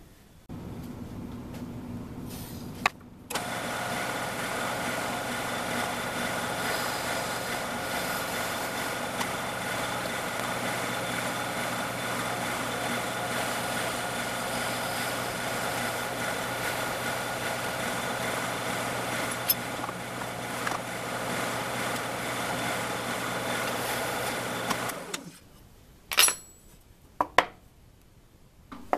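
Drill press motor running steadily for about twenty seconds while the bit bores into a wooden block, then switched off. A few sharp knocks follow near the end.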